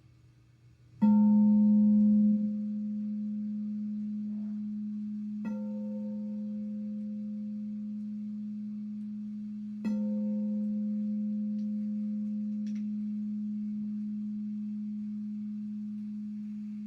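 A struck metal sound-healing instrument rings out, hit three times about four and a half seconds apart. Each strike gives a low steady hum with brief higher overtones, and the hum sustains and slowly fades between strikes.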